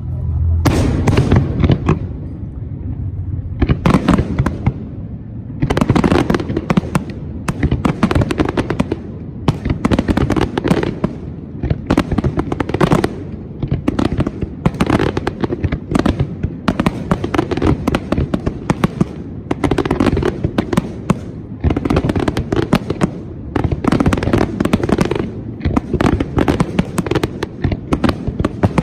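Fireworks display: a rapid, near-continuous barrage of aerial shell bursts and crackling bangs, with a brief lull about three seconds in.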